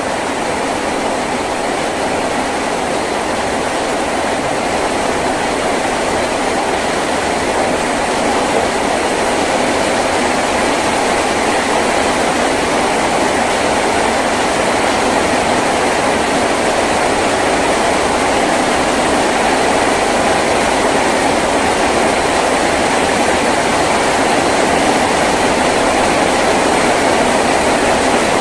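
Heavy rain falling steadily on a tin roof, a constant even patter that holds without a break.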